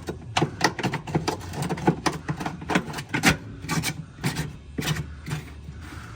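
Irregular clicks and scraping of hard plastic and wood as toothpicks and debris are worked out of a front-load washer's drain pump, over a low steady hum.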